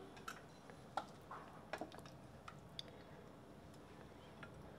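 Near silence with a few faint, scattered light taps of a wooden spoon in a steel pressure-cooker pot, as pieces of boiled mutton liver are lifted out of the gravy.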